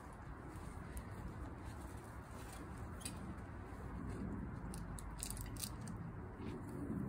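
Light handling clicks and rustles as potted flowers are set in place on a cloth-covered table, heard a few times, mostly after about five seconds, over a steady outdoor background hiss.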